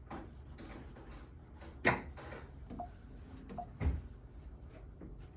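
A few light knocks and clicks over a low hum, the loudest about two seconds in and another about four seconds in.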